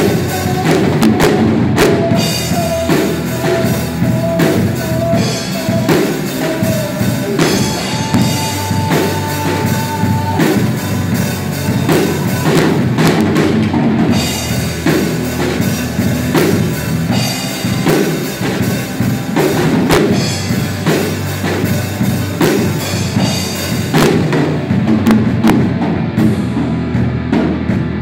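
Live rock band playing: a drum kit with kick and snare beating steadily under electric guitars and bass guitar, with long held notes through the first ten seconds or so.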